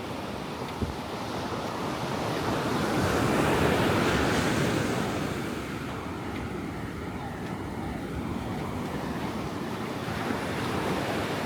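Ocean waves breaking and washing up a beach, one wave swelling to its loudest a few seconds in and then easing off, with wind on the microphone.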